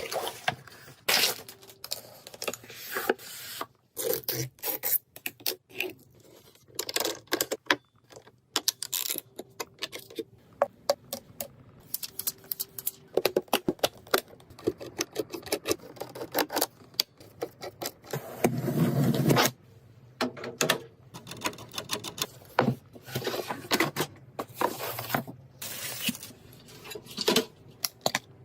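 Parts of a desktop PC being handled and fitted by hand: a long run of irregular clicks, taps and small knocks, with a louder scraping stretch about two-thirds of the way through.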